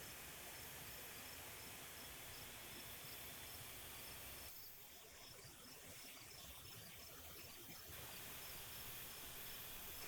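A cricket chirping in repeated high, evenly spaced chirps over a faint steady hiss.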